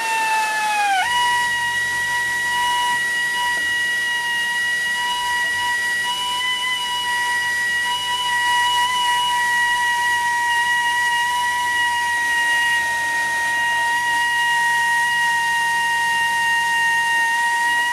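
Drill running with the Rescue Bit boring into a snapped-off cobalt drill bit stuck in a broken bolt, giving a steady, high whistling whine. The pitch sags over the first second, then holds level.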